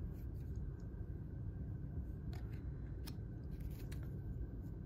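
Baseball trading cards being slid and flipped against each other in the hands: a few faint scattered ticks and scrapes over a steady low hum.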